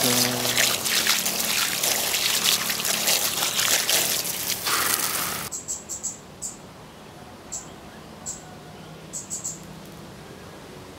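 Water from a garden hose spraying onto the roots of unpotted adenium plants, washing the soil off, a dense hiss that cuts off abruptly about five and a half seconds in. After that only a quiet outdoor background with a few short, high-pitched chirps.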